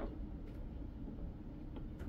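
A few faint clicks of plastic Lego bricks being handled and fitted together, over a steady low hum.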